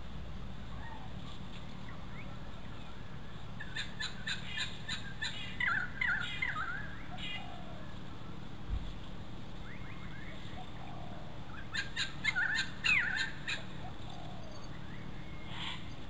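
Satin bowerbird calling in two bouts, a fast run of clicks mixed with short chirps and falling whistled sweeps, about four seconds in and again about twelve seconds in.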